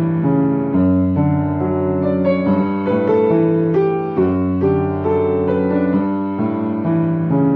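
Background music: a gentle piano piece playing steady held notes and chords.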